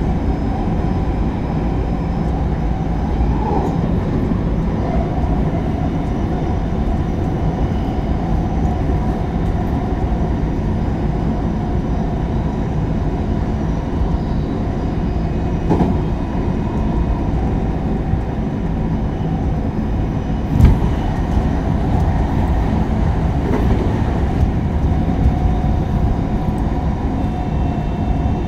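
Interior running noise of a JR West 223 series 0 electric multiple unit with Toshiba GTO inverter control, heard in motor car KuMoHa 223-3. The wheels rumble steadily on the rails under a steady whine from the traction equipment, with a single sharp knock about two-thirds of the way through.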